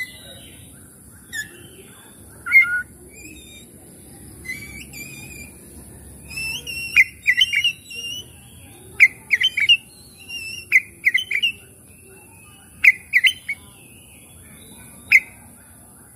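Oriental magpie-robin (kacer) singing: short, sharp whistled and chattering notes, scattered at first and then coming in quick loud clusters from about six seconds in. A faint steady high hiss runs underneath.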